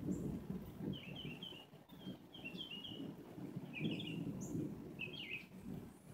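Birds chirping in short quick notes, in clusters of two to four about every second, over a steady low rumble of background noise.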